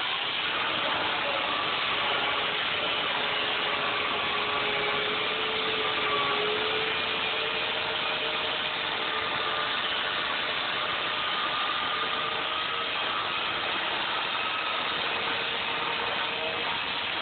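Electric chainsaw running steadily, its motor giving a faint whine over the rushing noise of the chain as it shaves thin layers off foam.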